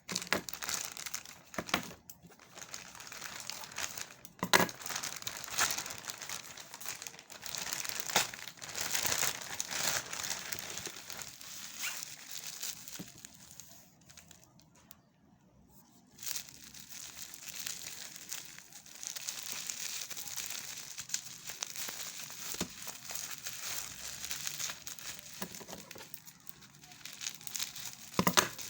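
Packaging of a RELX vape pod kit being handled and unwrapped: continuous crinkling of plastic wrap and packaging, with a few sharper knocks. There is a brief lull about halfway through.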